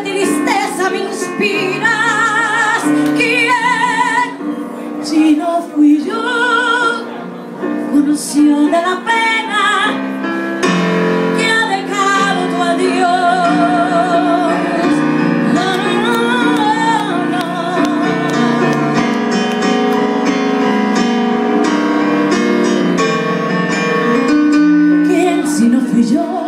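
A woman sings a slow ballad with vibrato while accompanying herself on a stage keyboard with a piano sound.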